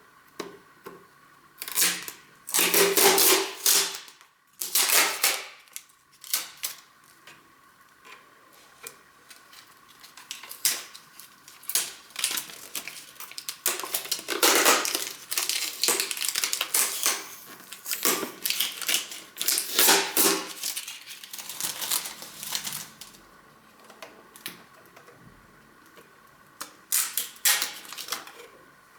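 Packing tape being peeled off a plastic 3D printer, with several louder tearing strips among irregular clicks and knocks from the plastic being handled.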